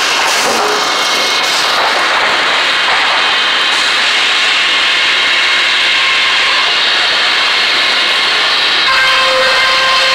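Sawmill edger's circular saws cutting a board as it is fed through, a loud steady noise. About nine seconds in, the cutting noise gives way to the steady whine of the saws spinning free as the board clears.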